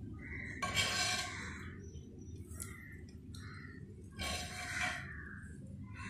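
Metal spoon ladling a tempering of oil, mustard seeds and sesame seeds over khandvi: two brief scraping sounds, about a second in and again near four seconds, over a low steady hum.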